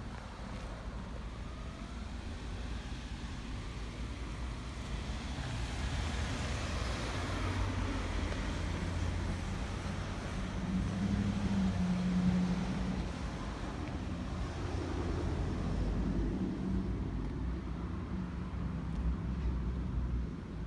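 Road vehicle noise: a steady low motor rumble, with a hiss that swells and fades about six to eight seconds in, like a car going by, and a low hum around the middle.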